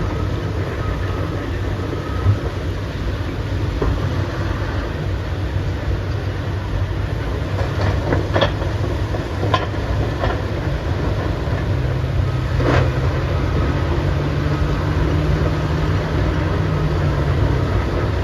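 Heavy diesel earthmoving machinery running with a steady low rumble, with a few sharp metallic clanks partway through and an engine note held higher for several seconds later on.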